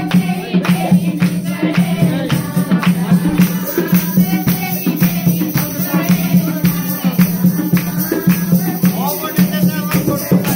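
Live folk music for giddha dancing: voices singing over a steady beat of hand claps and percussion, with a steady low drone underneath.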